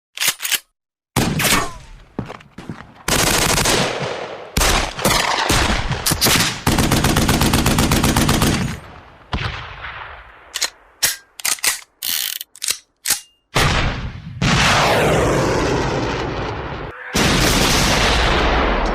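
A run of separate sound effects of the gunshot and explosion kind: single sharp bangs, a rapid burst of many shots about a third of the way in, and two long booms with slowly fading tails near the end.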